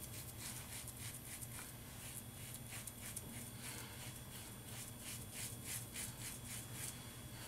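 Pearl Hammer double-edge safety razor scraping through lathered stubble on the neck: a quick series of short, faint rasps, about three strokes a second.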